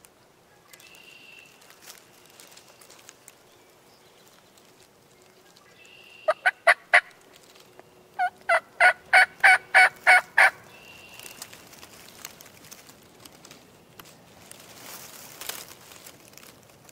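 Turkey yelping: a run of four loud, evenly spaced yelps about six seconds in, then a longer run of about nine, roughly four a second.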